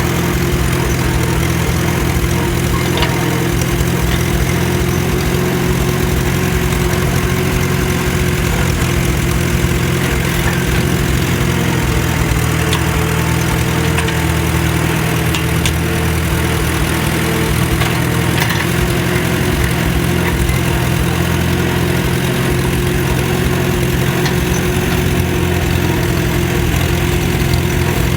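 Tractor engine running steadily at a constant speed, with an even low drone that holds throughout.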